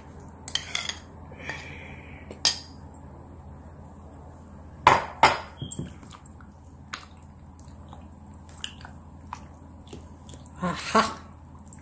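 Scattered clinks and knocks of a bowl and kitchen utensils as chicken is worked into marinade by hand. The loudest is a pair of knocks about five seconds in, with more near the end, over a low steady hum.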